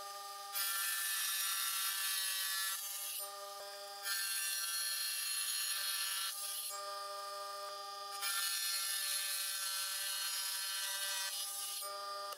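Wet tile saw running with a steady whine, its water-fed blade grinding through a small rock three times, each cut a loud hiss over the motor lasting about three seconds.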